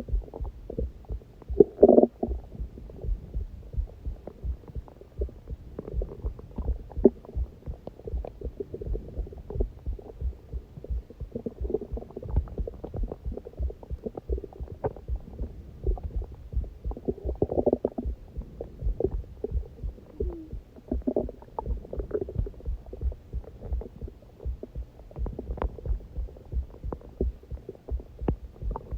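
A person's heartbeat, a steady run of low thumps, with the stomach growling and gurgling over it several times: about two seconds in, and again around the middle and two-thirds of the way through. The growling comes from hunger.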